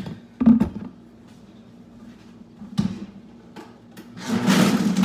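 A few clunks of the Vitamix blender container and lid being handled and set down, then about four seconds in the Vitamix motor starts with a loud steady whirring as it blends ice and cashew milk.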